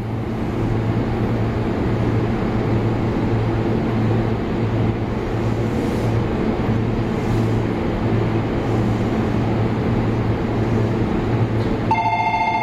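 Steady low hum of an E233 series electric train standing at the platform with its doors open. Near the end, the platform's electronic departure bell starts ringing in a rapid warble.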